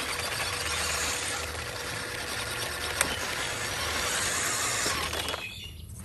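Remote-control scale pickup truck's electric motor and gearbox whining as it crawls and scrabbles over a plastic ramp and sand, with one sharp click about three seconds in. The noise drops away shortly before the end.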